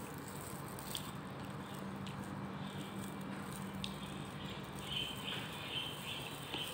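Quiet eating sounds from hand-eating with plastic gloves: soft chewing and handling of food, with a few light clicks, over a steady low hum.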